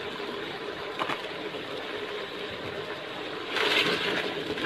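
Beef pieces sizzling in oil in a pressure cooker pot as they are fried dry, a steady sizzle, with a wooden spatula stirring. The stirring gets louder for a moment about three and a half seconds in.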